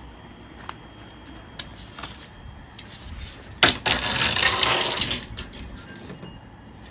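Steel tape measure in use: a few light clicks, then about three and a half seconds in a sharp snap followed by about a second and a half of rattling, rasping blade noise.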